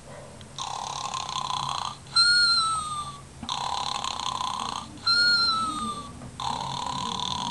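A novelty snore button plays a recorded cartoon-style snore: three raspy snoring breaths, each about a second and a half long, alternating with two louder whistles that fall in pitch.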